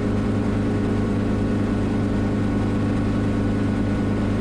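Schweizer 300CB helicopter's piston engine and rotors running steadily in a hover, heard from the cockpit: an even, unbroken drone with a strong low hum.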